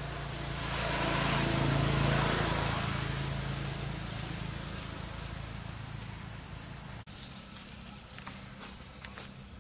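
Insect buzzing over a steady outdoor hiss; the buzz swells about a second or two in, then slowly fades. A brief dropout about seven seconds in.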